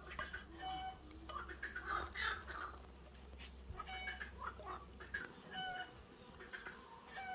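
Chickens clucking: a run of short pitched calls, one every second or so.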